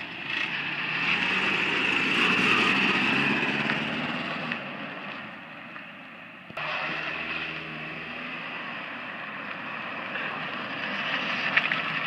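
A Toyota pickup truck's engine running steadily, with a sudden jump in level a little past halfway.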